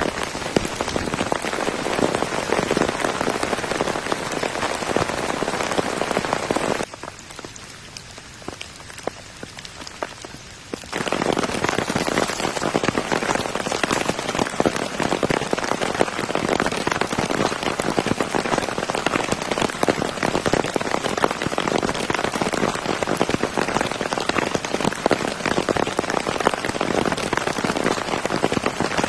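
Heavy rain falling steadily, a dense patter of countless drops. About seven seconds in it abruptly drops to a much softer level for about four seconds, then returns just as abruptly.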